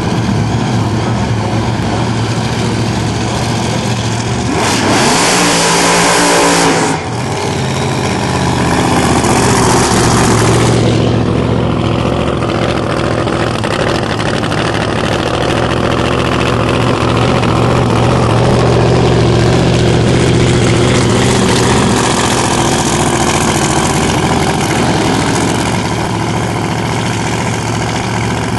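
Drag-racing car engines, including a supercharged one, running loud at the starting line: a deep steady idle broken by two loud bursts of hard revving, one about five seconds in and another around nine to eleven seconds in.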